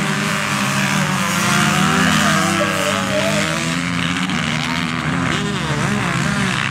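A pack of motocross dirt bikes accelerates away from the start, several engines revving at once and rising and falling in pitch. It is loudest about two seconds in.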